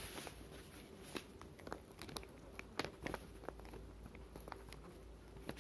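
Golden-yellow crayon tapping and scratching on drawing paper while colouring in small coat buttons: faint, irregular ticks.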